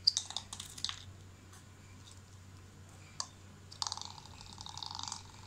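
Homemade spinning top of two plastic bottle caps on a toothpick, clicking against a marble floor as it is set down and twirled in the first second. From a little before four seconds in it spins with a fast rattling whir for about a second and a half, then stops.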